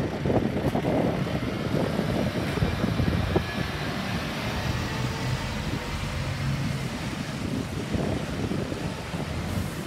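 Fire engine's diesel engine running as the truck pulls out and drives past, a steady low rumble.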